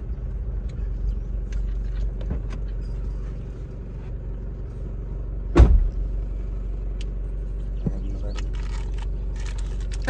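Car engine running steadily at low revs, heard from inside the cabin as a low hum, with a single sharp thump a little past halfway.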